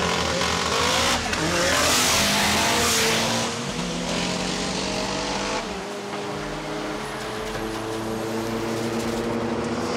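Street-racing cars accelerating hard from a standing start: engines revving up, loudest about two to three seconds in, then running on at high revs as the cars pull away.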